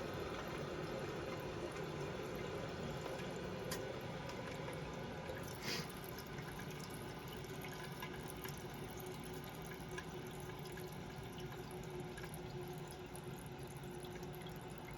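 Toilet tank refilling through its fill valve: water running steadily into the tank, a slow fill, with a few faint ticks along the way.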